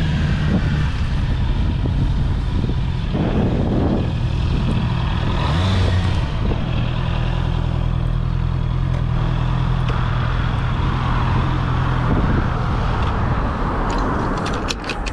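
Honda CB650R's inline-four engine running at low road speed, a steady engine tone under wind noise on the helmet microphone. A few sharp clicks near the end as the bike comes to a stop.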